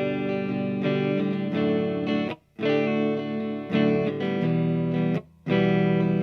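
Jackson Soloist SLATXMGQ3-6 electric guitar with EMG 81/85 pickups, played clean on the neck pickup through a Marshall Origin 50 amp. Ringing chords change every second or so, and the sound is cut off briefly twice.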